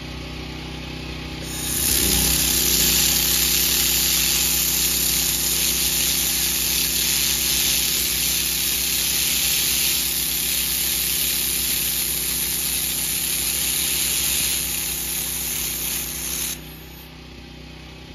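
Handheld 1500 W fiber laser welder laying a wire-fed bead on a steel corner joint: a loud steady hiss starts about a second and a half in and cuts off sharply near the end. A steady low hum runs underneath throughout.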